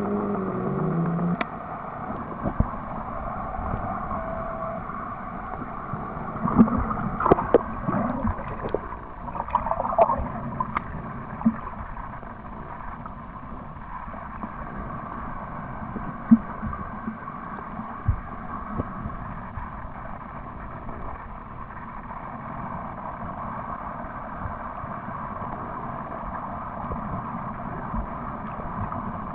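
Muffled underwater ambience picked up by a submerged camera: a steady low wash of water with scattered clicks and knocks, busiest a few seconds in. Music plays briefly at the start and ends about a second and a half in.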